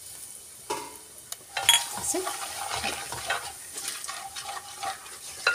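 Ground spices sizzling in hot oil in a nonstick kadhai. A spatula stirs and scrapes them around the pan, starting about a second and a half in.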